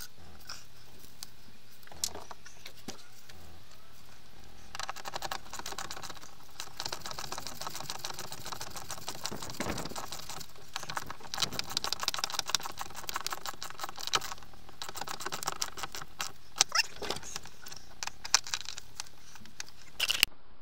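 Nuts being tightened by hand tool onto the solar panel bracket bolts from under the van roof: a few single knocks, then from about five seconds in a long run of rapid metallic clicking, with a few louder knocks near the end.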